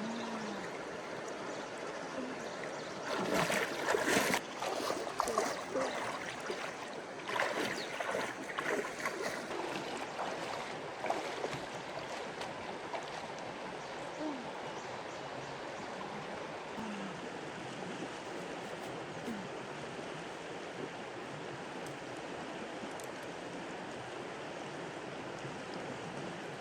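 Flowing floodwater rushing steadily, with bouts of splashing a few seconds in and again around seven seconds.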